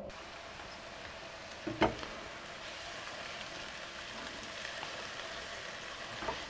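Diced onion and red pepper sizzling steadily in oil in a pot, with one short knock about two seconds in.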